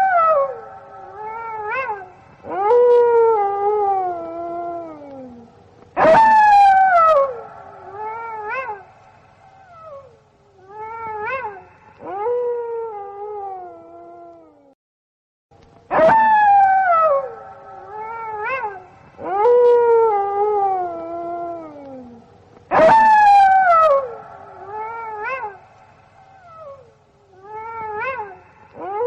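Gray wolves howling in chorus: several overlapping voices with long howls that fall in pitch and shorter yipping calls. There is a brief silence about halfway through, and then the same sequence of calls plays again.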